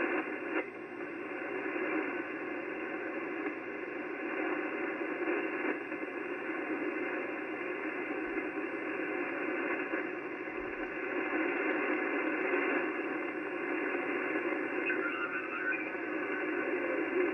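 HF transceiver's speaker giving steady 80-metre band noise and static while the receiver is tuned across the band, a hiss cut off sharply above about 3 kHz by the receive filter.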